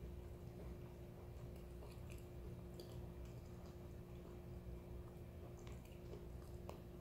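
Faint crunching and clicking of someone chewing a dry, crunchy chunk of white kaolin clay, with a steady low hum underneath.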